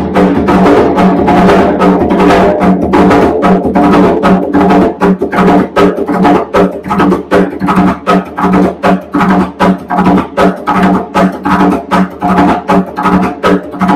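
Bomba barrel drum played with bare hands in a very fast, unbroken pattern of several strokes a second over the drumhead's ringing tone: the seis corrido rhythm.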